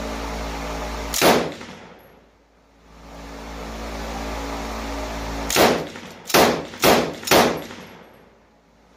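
MG34 machine gun (7.92 mm Mauser) firing on its tripod: one sharp report about a second in, then four more in quick succession near the end.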